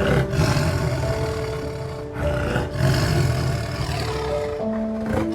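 A large animal giving several deep, rough roars in a row, with soft background music notes over them.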